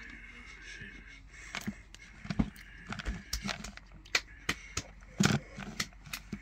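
Someone chewing a soft gummy candy stick after dipping it in sour gel: irregular wet mouth clicks and smacks, the loudest cluster a little past the middle.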